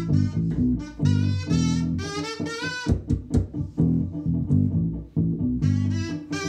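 Kazoo buzzing a melody with upward pitch slides over an electric bass guitar playing low, rhythmic notes.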